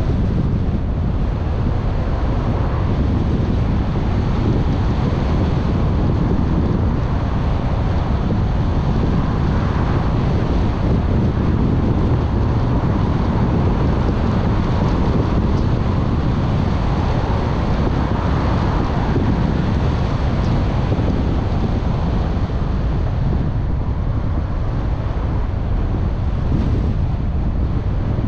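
Steady road and wind noise of a car driving: a low, even rumble with wind buffeting the microphone.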